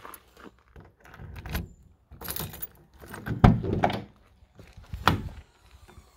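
Rear tailgate of a VW Transporter T4 van being unlatched: keys and handling at the lock, then a sharp metallic clunk of the latch about three and a half seconds in, and another click about five seconds in.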